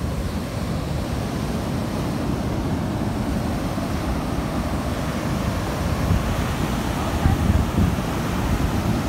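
Ocean surf washing steadily on the shore, with wind buffeting the microphone.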